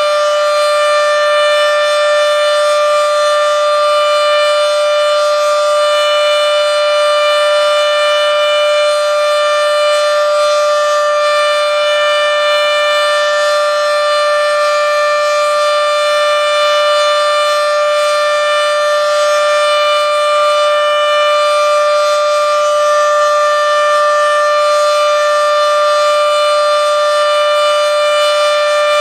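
Federal Signal Model 7B outdoor warning siren sounding a steady alert tone, holding one pitch that falls short of its full pitch, extremely loud.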